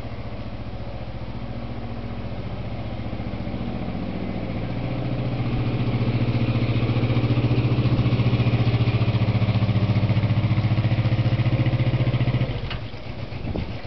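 Canal narrowboat's engine running with a steady, even beat as the boat passes close by; it grows louder about five seconds in and drops away sharply near the end.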